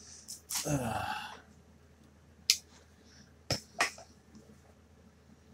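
A man's short throaty sound, dropping in pitch, about half a second in, then three sharp crackles of newspaper packing being handled as he unwraps a package.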